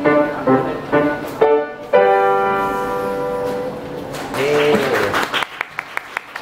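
Yamaha grand piano played, the piece ending about two seconds in on a held chord that rings out. From about five seconds in, hand clapping follows, about three claps a second.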